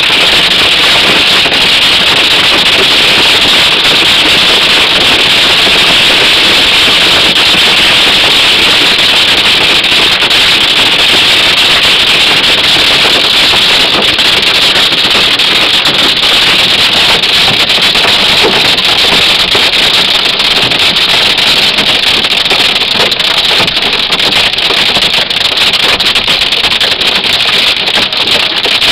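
Hail and rain clattering on a car's roof and windshield, heard from inside the cabin: a loud, dense, steady rattle of countless small impacts that thins into more separate hits near the end.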